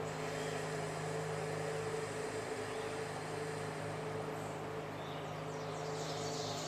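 A steady motor hum with a low throb pulsing a few times a second. Near the end, a run of quick, high, falling chirps from a small bird begins.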